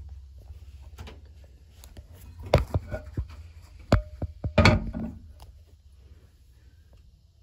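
Porcelain tank lid of a 1977 Briggs Duke toilet knocking and scraping as it is lifted off and set aside: a few sharp clunks between about two and a half and five seconds in, one of them ringing briefly. A faint low rush fades underneath.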